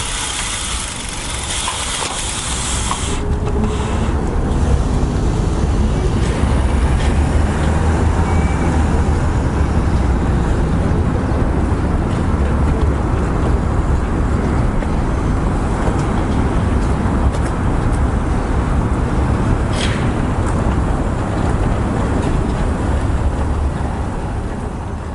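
Steady low rumble of road traffic and wind buffeting on a bicycle-mounted action camera's microphone; a higher hiss drops away about three seconds in.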